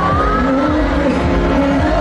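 Background music with a steady level; a high note slides upward through the first half-second.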